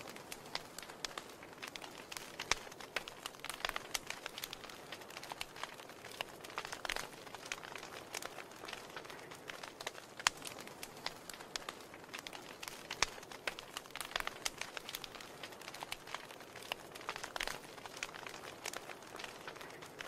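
Wood fire crackling in an open fireplace: irregular sharp snaps and pops over a soft, steady hiss.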